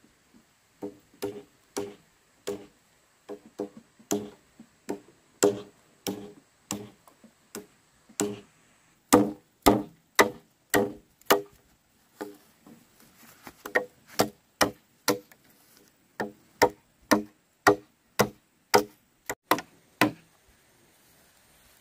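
Repeated sharp knocks or chops, irregularly spaced at about two a second, each with a short ring; they are loudest through the middle and stop shortly before the end.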